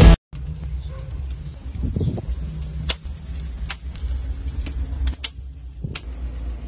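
Wood fire crackling, with a handful of sharp separate pops over a low steady rumble.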